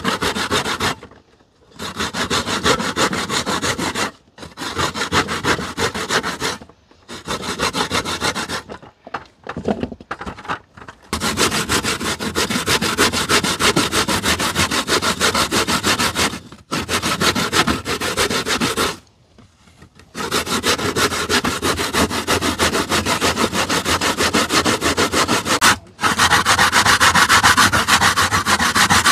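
Coconut flesh being grated by hand on a grater: quick, even rasping strokes in long runs, broken by short pauses several times.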